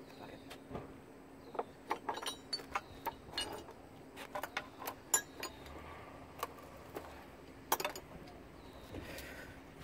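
A string of irregular light metallic clinks and taps from hand tools and loose metal parts being handled on the car, loudest about five seconds in and again near the end, over a faint steady hum.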